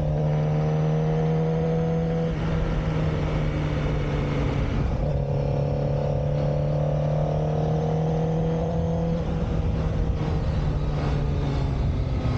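2007 Suzuki GSX-R600 (K7) inline-four engine running steadily under way at moderate revs. Its pitch changes slightly a few times as the throttle is varied, over wind and road noise.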